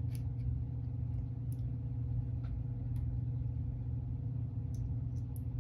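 A steady low hum, with a few faint light clicks of small steel rifle parts, the recoil spring, guide rod and end plate, being handled.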